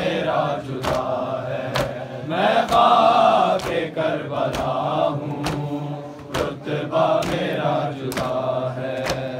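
Mourners chanting a noha refrain in unison, with the sharp slaps of matam, open hands beating on chests, landing together about once a second.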